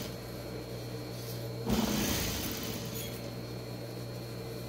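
Juki DDL single-needle industrial lockstitch sewing machine: its motor hums steadily, and it stitches in a short run near the middle while a knit side seam is sewn.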